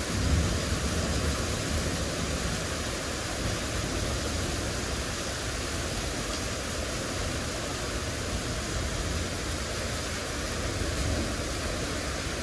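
Heavy thunderstorm rain pouring down, a steady even hiss with a low rumble beneath it.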